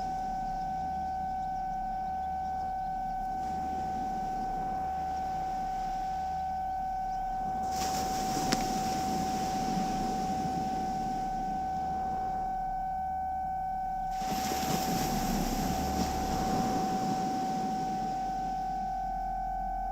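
Battery-powered synthesizer improvisation: a steady held tone over a low pulse about once a second. A hiss layer switches on about eight seconds in, drops away briefly, and returns louder about fourteen seconds in.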